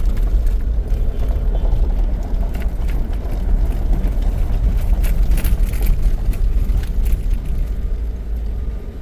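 Car driving over a rough road, heard from inside the cabin: a steady low rumble of tyre and road noise, with a few brief clicks or rattles a little past the middle.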